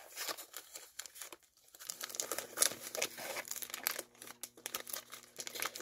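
White plastic poly mailer bag crinkling and tearing as it is handled and pulled open, in irregular crackles with a short pause about a second and a half in.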